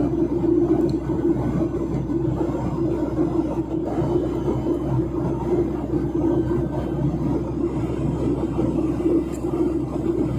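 Steady cabin noise inside a Boeing 737-900ER in flight: its CFM56-7B turbofan engines and the airflow over the fuselage make a constant drone with a strong low hum.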